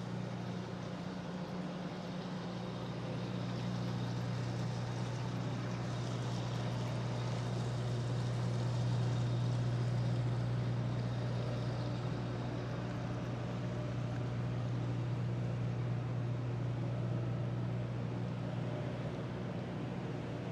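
Steady low machinery hum from a moored ship, typical of its diesel generator running at the quay; it grows a little louder about halfway through, then eases slightly.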